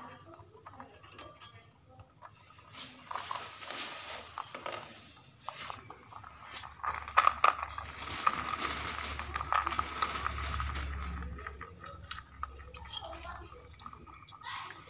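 Rustling, scrabbling and sharp clicking rattles as rabbits move about in a wire cage while food is handed in. The sounds are busiest through the middle, over a steady high-pitched whine.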